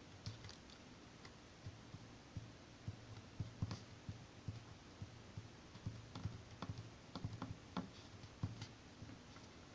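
A pen writing on a sheet of paper: faint, irregular small taps and scratches.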